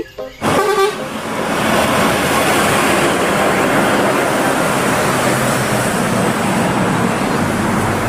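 Bulk tanker truck and trailer driving past, a steady wash of engine and tyre noise.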